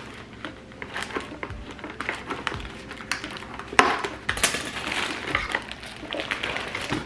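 Kraft paper and cardboard rustling and scraping as a wrapped bouquet is worked out of its shipping box, with scissors snipping at the packaging and scattered sharp clicks.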